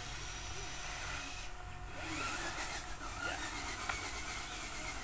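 Small electric motor of an RC dump truck whirring steadily as it raises the tipper bed to dump its load of soil.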